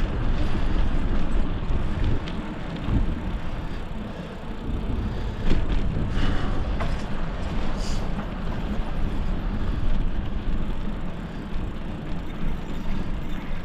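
Wind rushing and buffeting over the microphone of a moving bicycle, a steady deep rumble with a few faint clicks.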